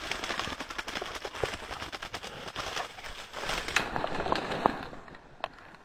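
Rustling and crackling of dense brush as someone pushes through undergrowth, with many small twigs snapping. It fades away about five seconds in, leaving near silence broken by a single click.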